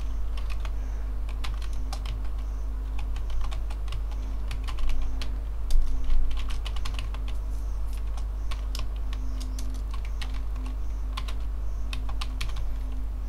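Typing on a computer keyboard: quick, irregular runs of key clicks with short pauses between words, a few louder clacks a little before the middle. A steady low electrical hum runs underneath.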